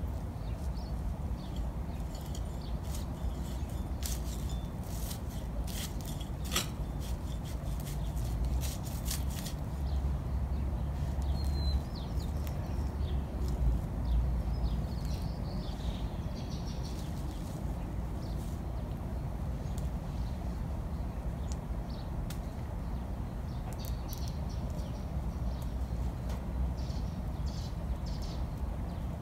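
Hand trowel digging and scraping in potting soil in a clay flowerpot: scattered small scrapes and clicks over a steady low rumble. A faint bird chirp sounds about halfway through.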